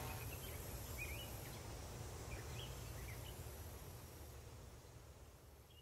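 Faint outdoor ambience: small birds chirping now and then over a low rumble, slowly fading out.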